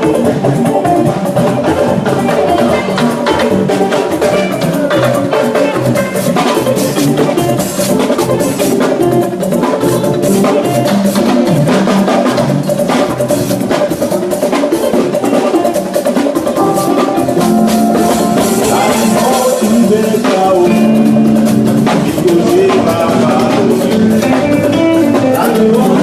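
Band music with a drum kit playing a steady beat under pitched instruments.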